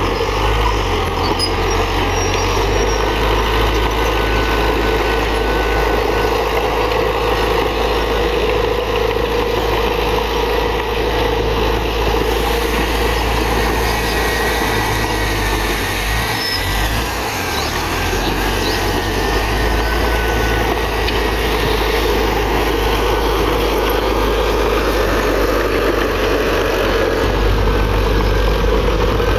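Komatsu D31PX bulldozer's diesel engine running steadily while it works, easing off briefly a little past halfway.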